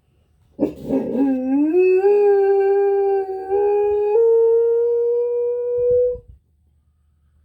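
Dog howling close by: one long howl that starts rough, slides up in pitch and then holds a steady note for several seconds before breaking off. The howl is set off by a tornado siren test.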